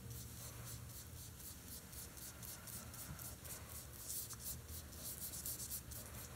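Paintbrush scrubbing across a textured painting surface in quick repeated strokes: a faint dry scratching, a little louder in the second half.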